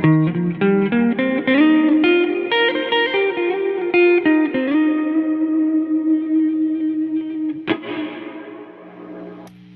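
Fender Stratocaster electric guitar through a Keeley Caverns shimmer reverb into an Egnater Tweaker amp. A quick climbing run of single notes leads into a long held note. A sharp pick attack near the end rings out and dies away in a reverb tail.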